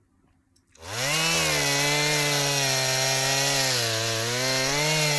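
A loud buzzing drone with a slowly wavering pitch cuts in suddenly about a second in and holds steady: the 'weird noise' the Coke is making.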